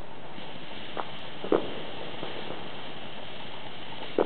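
Ground fountain firework catching from its fuse and spraying sparks with a steady hiss. Three short sharp knocks come at about one, one and a half, and four seconds in.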